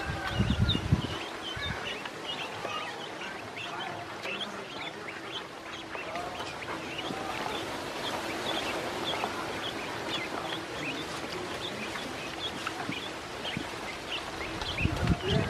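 A group of ducklings peeping continuously, many short, high, rising peeps overlapping one another. A couple of brief low rumbles come about half a second in and again near the end.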